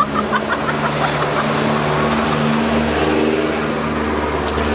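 A motor vehicle engine running close by, its pitch shifting up and down in steps, over street noise.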